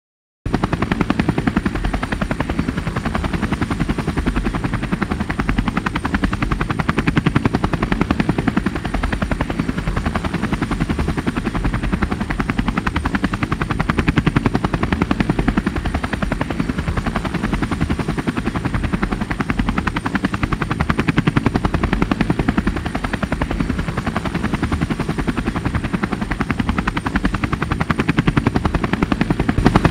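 Camera drone's propellers in flight, a steady buzz with a fast chopping pulse that starts suddenly about half a second in.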